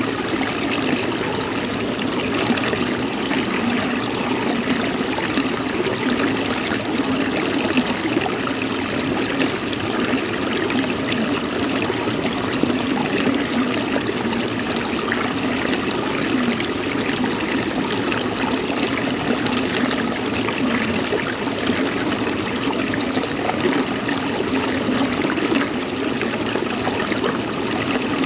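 Running water, steady and unbroken, with a fine spattering texture.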